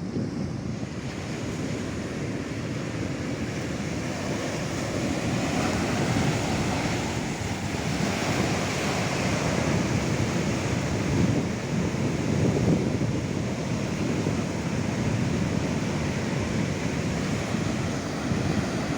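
Steady rushing outdoor noise with wind buffeting the microphone, growing somewhat louder about a third of the way in.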